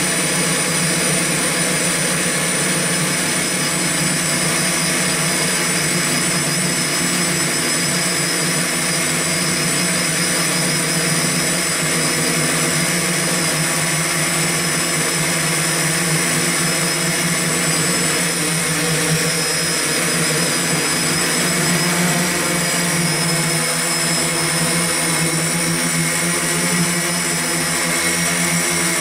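X8 multicopter's electric motors and propellers running in steady flight, heard up close from the camera on board: a constant whirring drone with several steady high whines laid over it.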